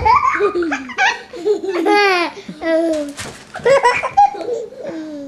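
A small child laughing in repeated high-pitched bursts, with a thump right at the start.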